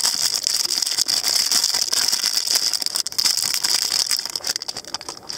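Metallic foil wrapper being peeled open and crumpled by hand, a dense crinkling crackle that thins out near the end.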